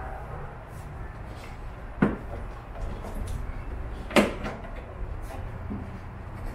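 Two sharp knocks about two seconds apart, with a few faint small clicks, as hands press and tap a plastic add-on side skirt into place along a car's rocker panel.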